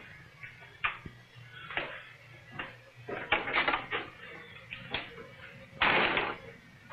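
Footsteps and knocks on a wooden floor, with a louder half-second scraping noise about six seconds in, over a faint steady low hum.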